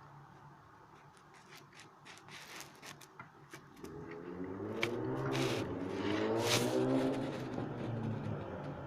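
A motor running with a wavering pitch, coming in about four seconds in and growing louder, over light clicks and scrapes.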